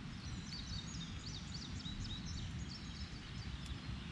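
A songbird singing a quick run of high chirping notes for about three seconds, over a steady low outdoor rumble.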